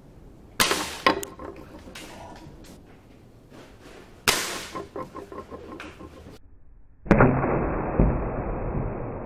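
Gamo Big Cat 1250 air rifle shots with pellets striking a metal paint tin lid: sharp cracks with a brief metallic ring, two close together about half a second and a second in, another about four seconds in. From about seven seconds the sound turns to slowed-down playback of a hit, a muffled, drawn-out impact with a heavier thud near the end.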